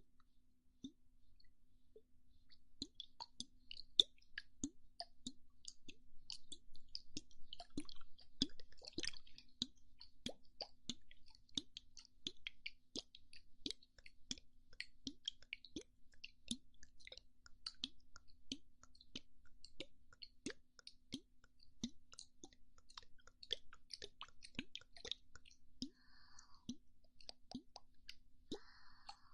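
ASMR mouth sounds close to the microphone: a steady stream of soft, wet clicks and pops, several a second, over a faint steady hum.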